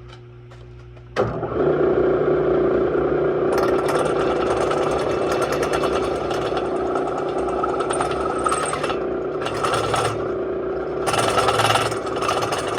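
Power-driven Crower dual valve-spring seat cutter starting up about a second in and running with a steady hum, cutting away the broken exhaust spring boss on an aluminium VW Type 1 cylinder head to bring it flat with the spring perch. A harsher cutting noise swells in spells over the hum, strongest near the end.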